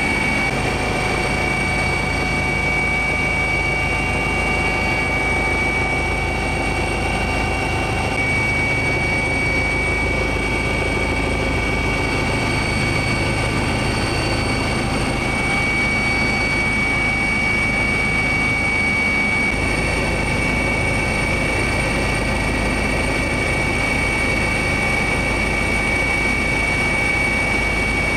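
Steady drone of an aircraft heard from inside its cabin: a constant low rumble with a steady high whine over it.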